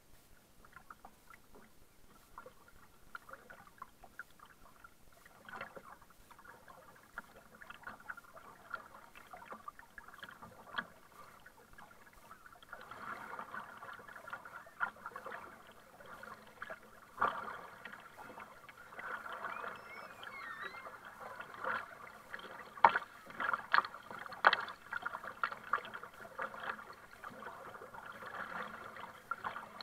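Kayak paddling: the paddle blades dip and splash into the sea, with drips and water slapping against the plastic hull in a run of short splashes. It gets louder and busier from about halfway through as the strokes pick up.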